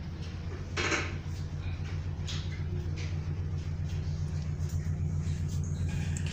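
Steady low drone of the KMP Shalem ferry's engines heard on the bridge, growing slightly louder as the ship gets under way. A short clatter comes about a second in.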